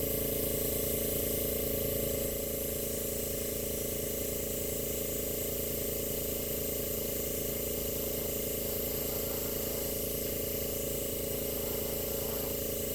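Small airbrush compressor running steadily, with the hiss of air from the airbrush blowing across wet acrylic paint.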